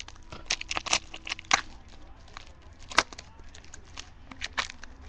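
Foil wrapper of a trading-card pack crinkling and tearing as it is opened, a string of irregular crackles with one sharper snap about three seconds in.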